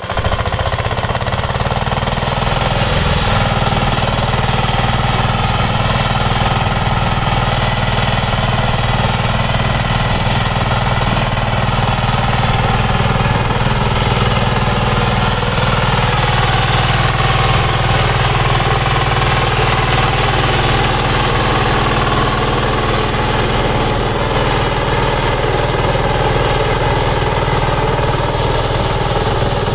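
Kirloskar 15 hp power tiller's single-cylinder diesel engine running steadily under load while its rotary tiller churns dry soil.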